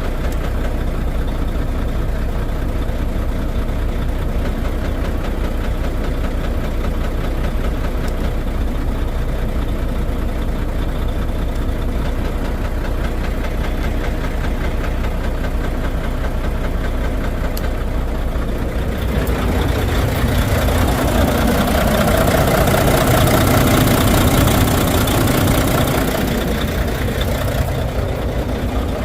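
Volvo D13 inline-six diesel engine idling with an uneven, knocking run, a misfire that points to a damaged fuel injector. About twenty seconds in it grows louder and brighter for several seconds, then settles back.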